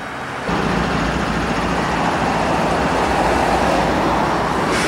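Canadian Pacific GE AC4400CW diesel locomotives passing close by, engines running with a steady low drone over rail and wheel noise. The sound jumps suddenly louder about half a second in and stays loud.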